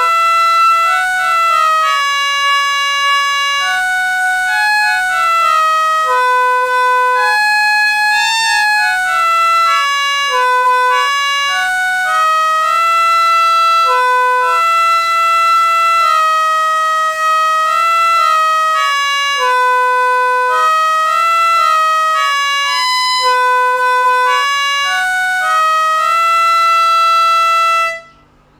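A slow melody played one note at a time on free reeds, each note a held reedy tone lasting about half a second to a second, stopping abruptly near the end.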